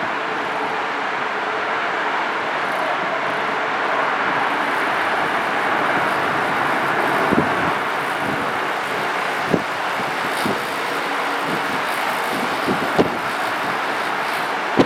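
Airbus A320 airliner's jet engines making a steady rush that swells slightly midway, broken by a few short thumps.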